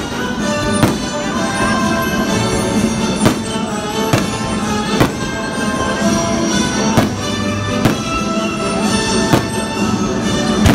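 Orchestral music playing loudly, with sharp bangs about once a second at uneven spacing, from fireworks bursting.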